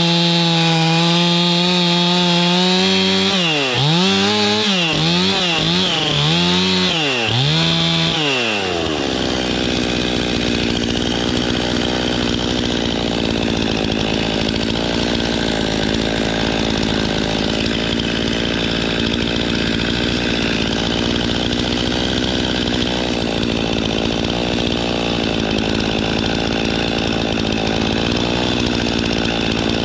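Stihl two-stroke chainsaw running at full throttle, its speed dipping and recovering several times, then dropping about nine seconds in to a steady idle.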